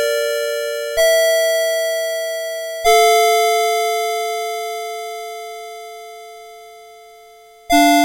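Citizen Melody Box 30 series alarm clock playing its electronic alarm melody in two-note chimes. A few notes strike a second or two apart, then a long note dies away slowly for several seconds, and a quicker run of notes starts near the end.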